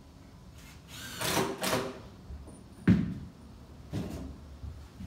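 Large window frame being shifted in its rough opening: a drawn-out scrape about a second in, a sharp knock just before three seconds, then a lighter knock.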